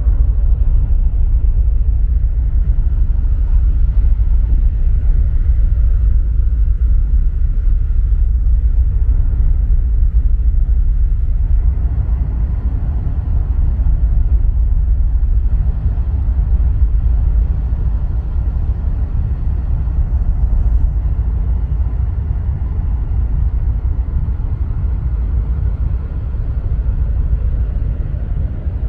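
Steady low rumble on the open deck of a moving car ferry, without a break or any sudden event.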